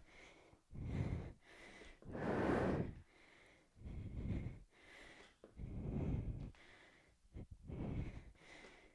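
Heavy breathing of a woman exercising, picked up close on her body-worn microphone: about five breaths, roughly one every two seconds, keeping time with her movements. The one about two seconds in is the loudest.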